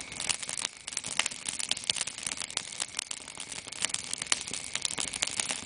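Wood fire crackling in a metal fire pit: a dense, irregular run of sharp pops and snaps over a steady hiss.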